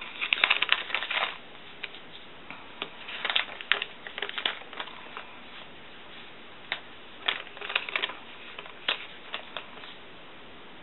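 Paper rustling and crinkling in short scattered bursts as stickers are peeled from a sticker sheet and pressed onto the pages of a traveler's notebook.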